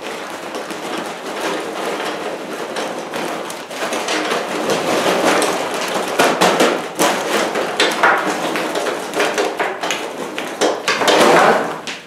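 Ridged charcoal briquettes poured from a paper bag into a metal chimney starter: a continuous clatter of briquettes hitting the steel and each other, with a louder rush a little before the end.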